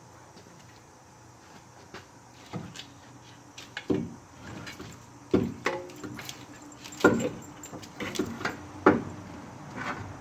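Irregular knocks and clunks, louder and more frequent from about four seconds in, as a starter motor is handled and worked up into place on a 6.5 turbo diesel engine.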